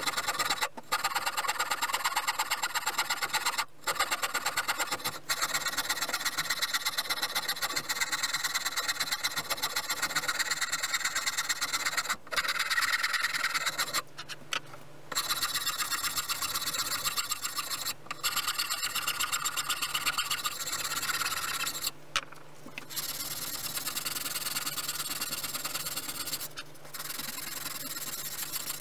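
A hand tool worked on wood, rasping with rapid, regular back-and-forth strokes and stopping briefly several times.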